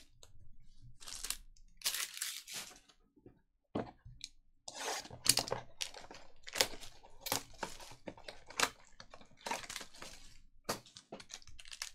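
Trading cards being shuffled, then a cardboard card box being torn open and its plastic-wrapped packs crinkled: a run of irregular scratchy rips and crackles.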